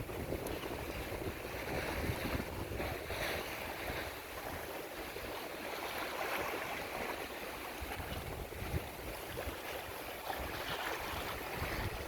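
Wind buffeting the microphone in gusts, over the steady rush of water along a sailboat's hull under way.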